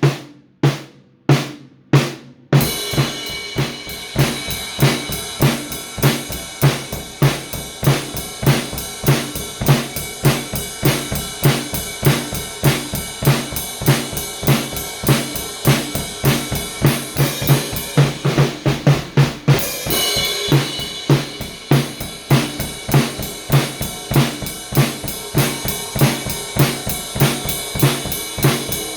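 Drum kit played in a steady groove of kick drum, snare and hi-hat, after four evenly spaced single hits as a count-in. Shortly past the middle the hi-hat and cymbals drop out for about a second and a half, then a crash brings the groove back in.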